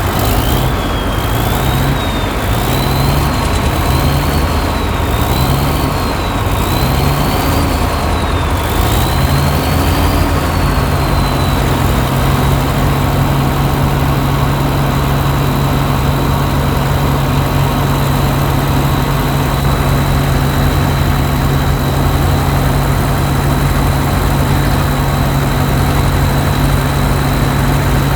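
Heavy diesel engine of the machinery working a mud-stuck truck free. It revs up and down repeatedly for about the first ten seconds, then settles to a steady run.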